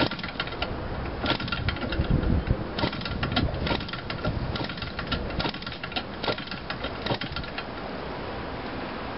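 Small gasoline model-airplane engine being flipped over by hand at the propeller, giving irregular sharp clicks and pops without catching and running.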